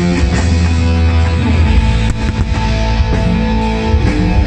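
Loud rock music with electric guitar, played over a show's sound system.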